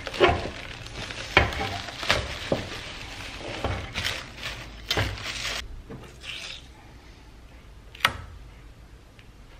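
Clear plastic wrap crinkling and rustling with sharp crackles as it is pulled off a painted part; the rustling stops a little over halfway through, followed by a single sharp click near the end.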